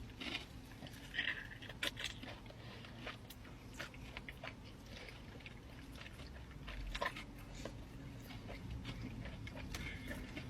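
A person biting and chewing food close to the microphone, with irregular wet mouth clicks, smacks and soft crunches.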